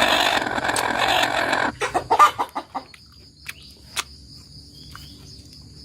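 Chicken squawking loudly for about a second and a half, then a few short clucks, over a steady high-pitched trill.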